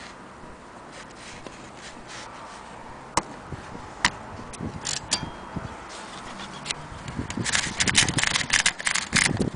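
Clicks and clacks from a vintage Corona typewriter's mechanism: scattered single sharp clicks, then a quick run of clacks near the end.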